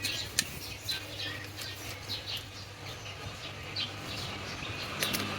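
Small birds chirping in the background: short, high chirps scattered throughout, with a couple of sharp clicks, one about half a second in and one near the end.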